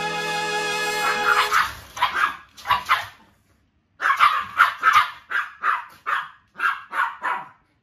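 Small dog barking in quick, sharp, repeated barks: a short run, a pause of about a second, then a steady string of about ten barks, about three a second.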